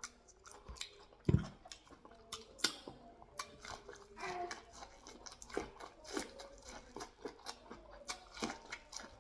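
Close-miked mouth sounds of eating corn on the cob and pear: wet chewing with many small clicks and smacks, and a single low thump about a second in.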